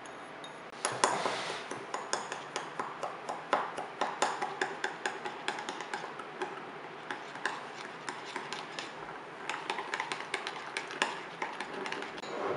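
A metal spoon stirring sugar into dragon fruit juice in a small ceramic ramekin, clinking against the sides in quick, irregular ticks that start about a second in.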